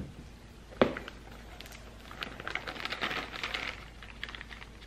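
Clear plastic flour bag crinkling as flour is poured and shaken out of it into a metal baking pan, with one sharp knock about a second in. The crinkling comes as a dense run of fine crackles in the middle of the stretch.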